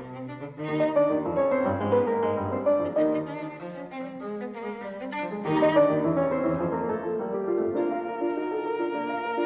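Instrumental background music of held, sustained notes.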